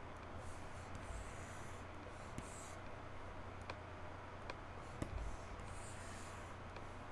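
Computer mouse being dragged and clicked while moving UV shells: soft scraping as it slides across the desk or mouse pad twice, and a few sharp button clicks.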